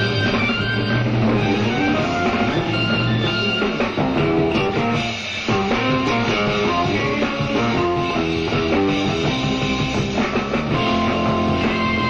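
Live jazz-rock fusion band playing: electric guitar, bass, keyboards and drums in a dense, driving passage, with a brief drop in level about five seconds in.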